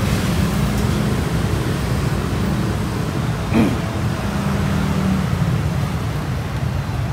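Steady low rumble of passing road traffic, with one brief sharp sound that falls quickly in pitch about halfway through.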